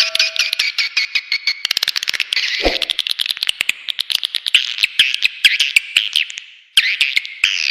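Recorded swiftlet call track for luring edible-nest swiftlets to a nesting house: a dense, rapid chattering of clicks and chirps. There is a short low thud about two and a half seconds in, and the chatter fades and breaks off briefly a little before the end, then resumes.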